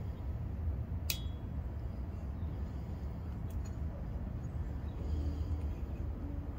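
Wind rumbling on the microphone. A single sharp metallic clink with a brief ring comes about a second in, and a fainter click follows a couple of seconds later.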